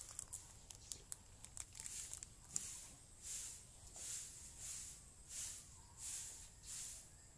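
A small plastic seed packet crinkling and crackling as it is torn open. From a couple of seconds in, it gives way to a soft, even swishing hiss repeating about every 0.7 seconds.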